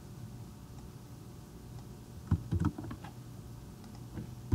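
A few quick computer keyboard clicks about two and a half seconds in, and one more near the end, over a low steady hum.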